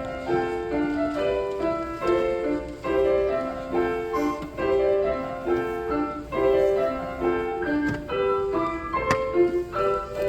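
Piano played at a steady tempo, a simple stepwise melody over a light accompaniment, with each note struck and fading; a kindergarten-age child playing at a first competition. A single sharp click about nine seconds in.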